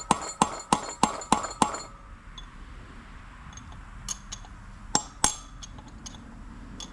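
Hammer striking a steel punch in quick, even blows, about three a second, driving a bearing race out of a tractor's front wheel hub; each blow rings with a metallic clink. The hammering stops about two seconds in, and two more sharp knocks follow near five seconds.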